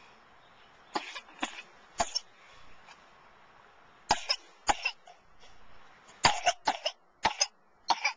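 A baby with a cold coughing: short coughs in three bouts, about ten in all.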